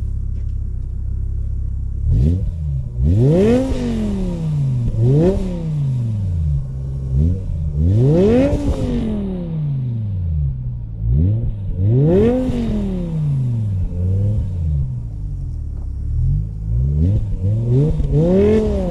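Chevrolet Corvette C5's 5.7-litre V8 running steadily, then revved five or six times, each rev climbing quickly and falling back more slowly.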